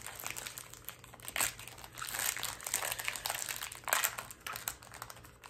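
Foil wrapper of a Pokémon trading-card booster pack crinkling irregularly as it is torn open and handled, louder in the middle stretch.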